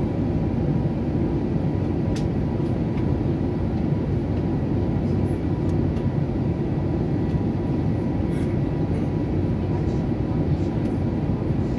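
Steady cabin noise inside an airliner in cruise flight: the low, even sound of the engines and the airflow over the fuselage, unchanging throughout.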